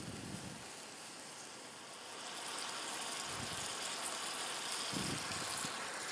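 Olive oil poured from a glass cruet over vegetables in a hot stainless steel pan, with a soft sizzling hiss that grows louder about two seconds in.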